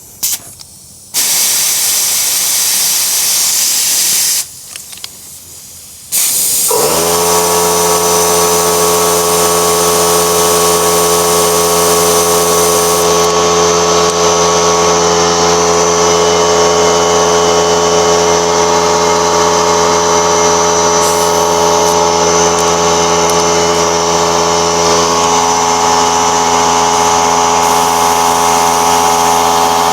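Compressed air hissing in two spells, then an electric air compressor motor starts about seven seconds in, rises quickly to speed and runs at a steady pitch.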